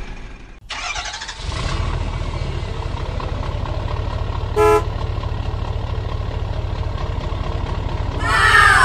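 Truck engine sound effect running steadily at a low rumble, with a short horn toot about halfway through and a louder falling, warbling sound near the end.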